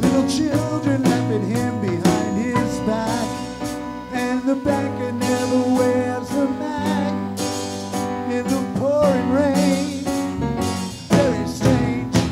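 Live rock band playing: electric guitar, electric bass, drum kit and keyboard, with maracas shaken near the start.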